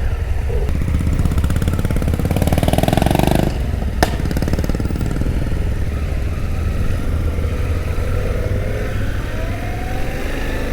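Suzuki V-Strom 800DE motorcycle's parallel-twin engine running, revving up louder about two seconds in. A sharp click about four seconds in, then the engine pulls away with rising pitch near the end.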